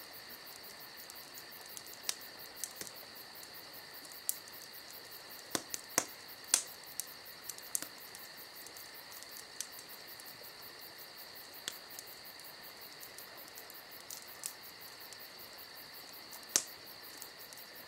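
Crickets chirping in a steady high trill, with a campfire crackling and giving sharp pops now and then; the pops are the loudest sounds.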